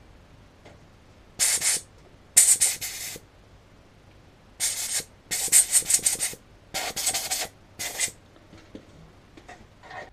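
Compressed-air blow gun firing about six short blasts of hiss into freshly tapped screw holes, clearing out the swarf. The first two blasts are separate, the rest come close together.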